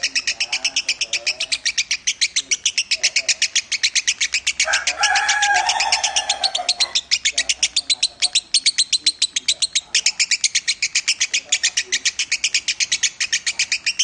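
Lovebird singing a long, unbroken trill of rapid high chirps, about six or seven a second. From about four and a half to seven seconds in, a louder, lower drawn-out call sounds over it.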